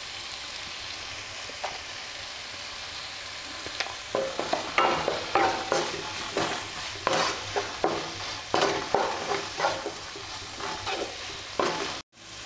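Sliced onions and bell peppers sizzling in a nonstick kadai. From about four seconds in, a wooden spatula stirs and scrapes them against the pan in quick, uneven strokes, with a brief cut-out near the end.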